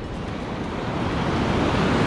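Sea surf washing onto the shore, a steady rush that slowly builds louder.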